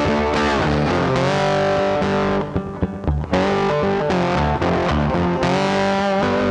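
Background music led by a distorted electric guitar, with a short break of sharp hits about two and a half seconds in.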